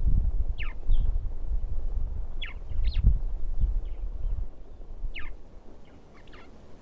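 Wild birds calling: short notes that slide downward in pitch, repeated every second or two. Beneath them a low, uneven rumble that eases off about two-thirds of the way through.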